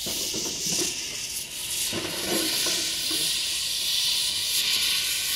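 Steam locomotive letting off steam: a loud, steady hiss.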